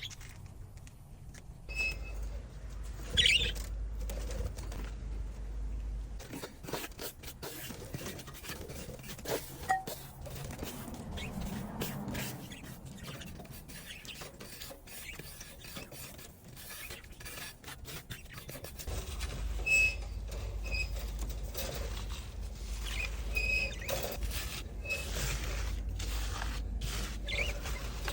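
Scraping, tapping and rattling of a bird cage being cleaned out, in irregular bursts, with a few short high-pitched squeaks scattered through.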